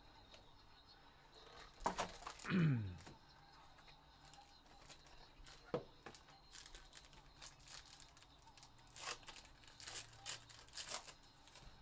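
Faint handling of a trading-card box being opened by hand: tearing and crinkling of packaging, with a few sharp clicks and a short sound falling in pitch about two and a half seconds in, and a stretch of crinkling in the second half.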